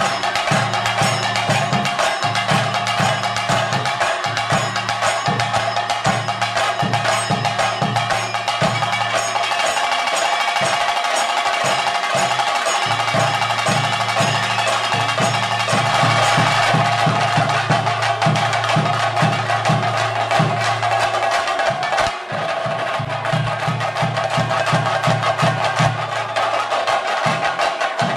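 Chenda drums of a Theyyam ensemble playing fast, dense stick strokes over repeating deeper beats, with a steady ringing tone above them. The drumming drops out for a moment about two-thirds of the way through.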